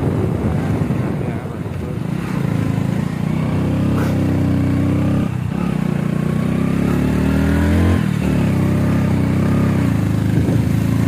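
Small 90cc motorcycle engine running under load while climbing, a steady engine note that briefly drops out and picks up again about five seconds in and again near eight seconds. Wind rushes over the microphone in the first couple of seconds.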